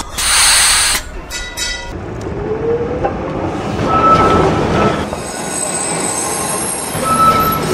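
Tram running on its rails with a high wheel squeal, typical of the wheels taking a curve, heard around the middle and again near the end. A short burst of hiss in the first second and a few clicks ride over the steady rumble of the car.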